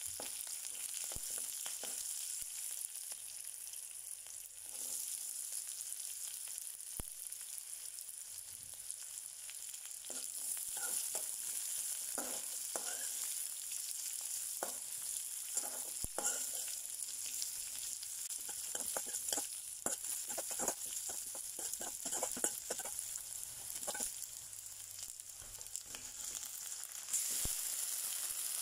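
Oil sizzling in a kadai as a tempering of mustard seeds, dal, curry leaves and green chillies, then sliced onions, fries. A metal spoon stirs, clicking and scraping against the pan many times through the middle, and the sizzle gets louder near the end.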